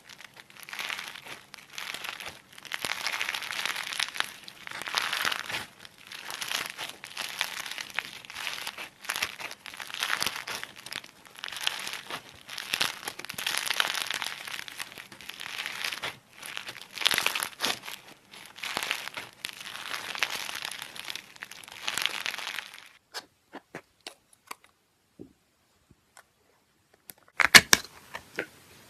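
Slime being kneaded and squeezed by hand, giving a steady crackling, crinkling sound of many small pops. The crackling stops after about 23 seconds, leaving a few scattered clicks and then a brief burst of sharper clicks near the end.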